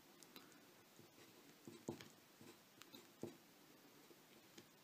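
Faint, irregular scratches and ticks of a pen writing on paper.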